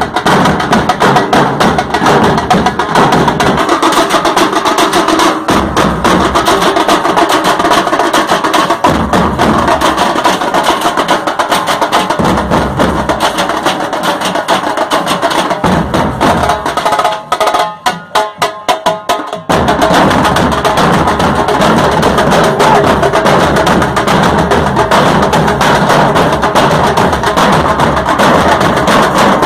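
Nashik dhol band playing: a group of large steel-shelled dhols beaten with sticks in a loud, fast, dense rhythm. A little past halfway the playing breaks down to a few scattered strokes for about two seconds, then the full band comes back in.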